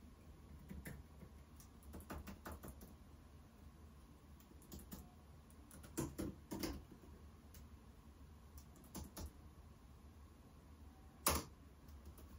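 Faint typing on a computer keyboard: irregular keystrokes and clicks, with one louder click near the end.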